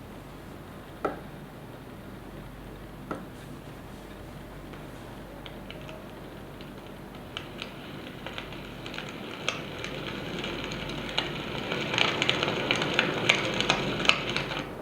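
Zidoo white noise generator playing a sound effect: a steady hiss with scattered clicks and crackles that grow denser and louder toward the end.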